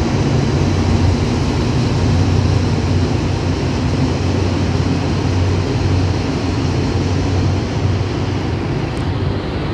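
Alsthom diesel-electric locomotive's engine running with a steady low drone as the locomotive pulls slowly away, growing slightly fainter near the end.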